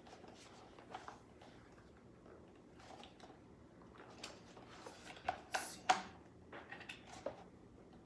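Rustling and soft clicks of packaging and gear being handled, with a brief louder rustle and knock about five to six seconds in.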